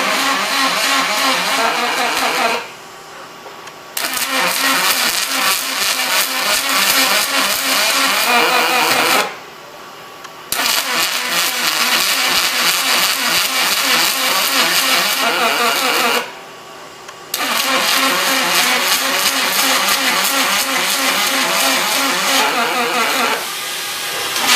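Robotic welding arc on aluminum, a loud steady crackling buzz. The arc stops for about a second three times between welds, then strikes up again, and falls away near the end.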